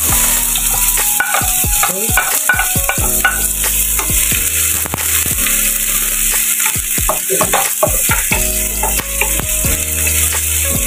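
Chopped red onion sizzling in hot oil in a metal wok, with repeated scrapes and knocks of a wooden spatula stirring it against the pan.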